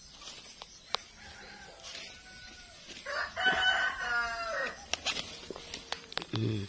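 A rooster crowing once, a call of about a second and a half starting about three seconds in, with fainter calls before it and a few sharp clicks after it.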